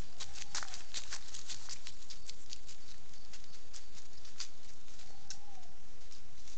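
A peccary's footsteps crackling and rustling in dry leaf litter as it forages, with quick dense crackles in the first couple of seconds and scattered ones after.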